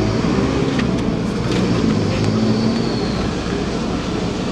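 Steady low rumble of a city bus and road traffic passing close by, with a few faint taps of the ball as a player dribbles in the first second and a half.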